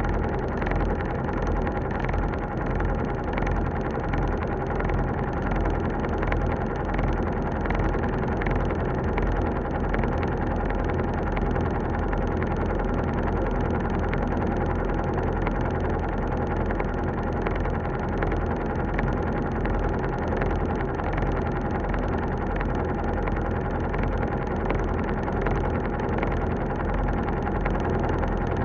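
Elevator running: a steady mechanical hum with a low rumble and a few held tones, with faint light clicks scattered through it.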